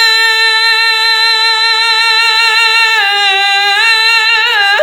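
A solo voice singing an Arabic song, holding one long steady note for about three seconds, then breaking into quick wavering vocal turns near the end.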